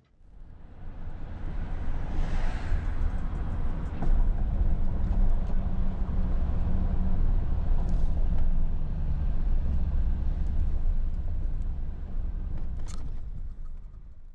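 Inside a moving car: steady low road and engine rumble that fades in over the first second or two, with a brief rush of noise about two seconds in and a single sharp click near the end.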